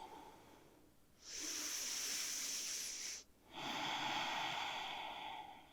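Two slow, audible breaths, one after the other, each lasting about two seconds, as a person breathes steadily while holding a yoga pose.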